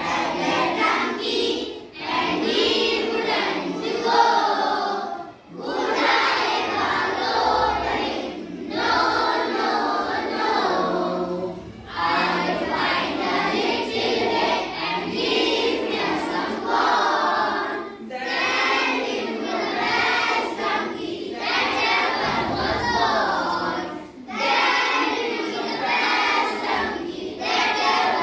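A class of children singing a poem together in unison, line by line, with short breaks between the lines.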